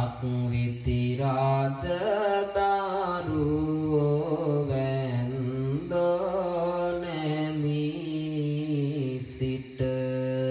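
A Buddhist monk chanting Sinhala devotional verses in a slow melodic voice, drawing out long notes that glide up and down in pitch, with a brief pause for breath about six seconds in and again near the end.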